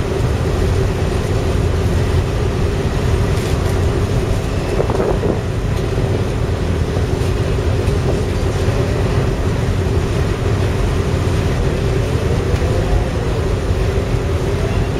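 Steady low rumble of a ferry's engines and machinery during bow door opening, with a constant hum underneath. A brief rising-and-falling tone sounds about five seconds in.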